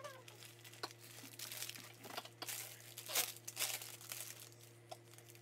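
Crinkling and rustling in irregular bursts as makeup supplies are handled, busiest in the middle.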